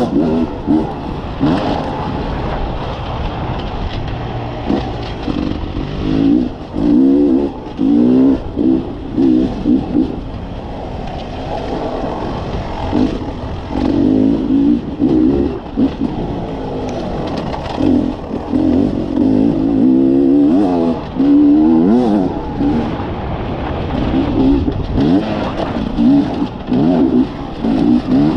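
Beta RR 300 two-stroke enduro motorcycle engine, heard from on board, revving up and dropping back again and again as the bike is ridden hard along a dirt track.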